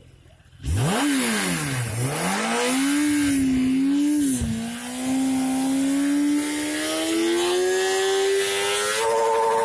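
Kawasaki ZX-10R's 998 cc inline-four on its stock exhaust, free-revved while the bike stands still. It comes in suddenly with a quick blip that falls back, then is held at raised revs that climb slowly, with a sharp step up near the end.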